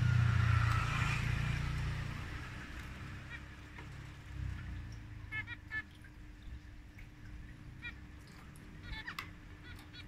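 Zebra finches giving short calls, scattered singly and in a quick run of several about five and a half seconds in. A low rumble is loudest in the first two seconds and then fades.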